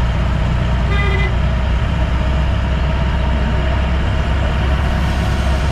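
Steady low engine and road rumble heard from inside a moving vehicle, with a brief high beep about a second in.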